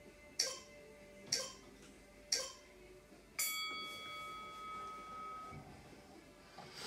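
Exercise interval timer counting down: three short ticks a second apart, then a bell-like chime that rings and fades over about two seconds, marking the end of a 15-second stretch hold.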